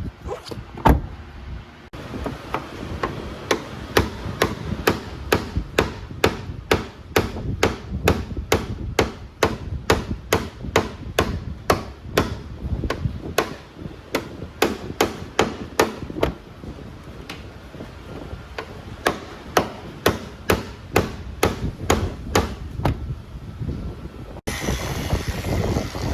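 Panel-beating hammer striking car-body sheet metal in steady, even blows, about two a second. Near the end it gives way to a steady rushing noise.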